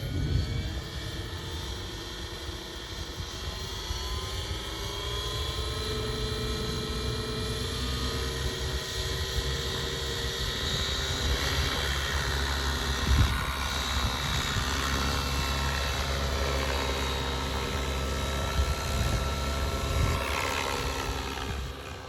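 Radio-controlled model police helicopter in flight: the rotor and motor run steadily, with a whine of several tones drifting slowly up and down in pitch over a low rumble.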